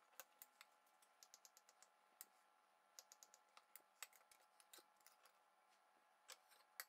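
Near silence, with faint scattered clicks from a knife cutting a slice of cake and tapping the plate.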